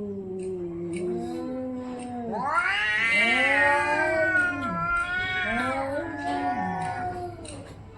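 Domestic cats caterwauling in a fight standoff: long, low moaning yowls, then a loud yowl that rises in pitch about two and a half seconds in and slowly falls away, followed by more low wavering yowls.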